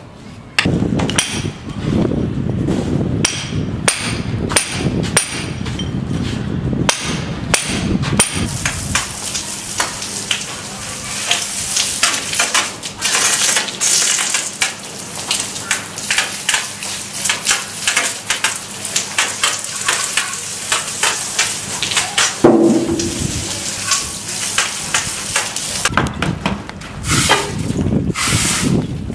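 Sharp taps about two a second, then a dense run of quick wet slaps and scrapes as a plastering trowel flings wet cement render onto a bare brick wall.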